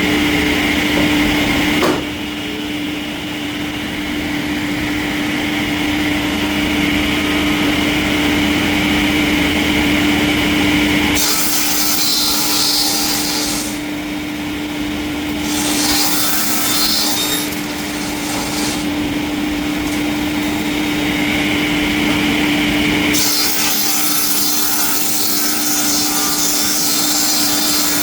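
Sawmill saw cutting through timber over a steady machine hum, the cutting noise changing abruptly in character about 2, 11 and 23 seconds in.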